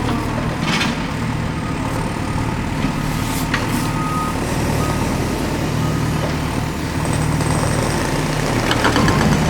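Toy construction truck sound effects: a steady low engine hum, with short high reversing beeps about a second apart starting about four seconds in, and a couple of clicks.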